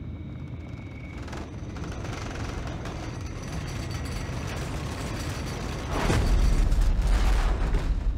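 Deep earthquake rumble building up, with a heavier, louder surge of rumbling about six seconds in.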